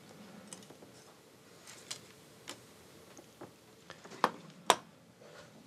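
Scattered light clicks and taps of small parts being handled at a workbench, with two sharper clicks near the end.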